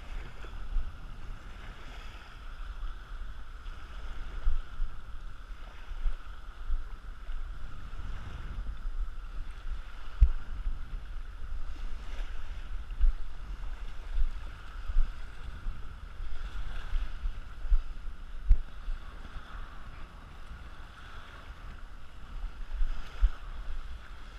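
Wind rumbling on the microphone with irregular thumps, over small waves washing onto the sand at the water's edge.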